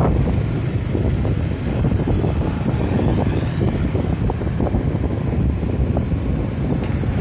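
Wind buffeting a phone microphone on a moving motorcycle, with motorcycle engines running under it as a steady low rumble.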